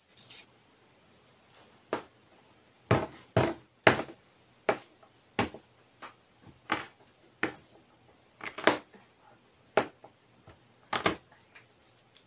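A kitchen knife chopping on a plastic cutting board: short, sharp knocks at an uneven pace, about one or two a second.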